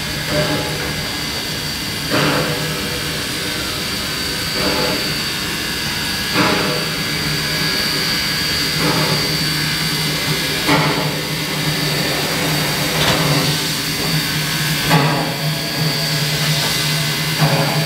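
Queensland Railways C17-class 4-8-0 steam locomotive drawing slowly toward the listener, with a steady hum and hiss and a slow, regular beat about once every two seconds.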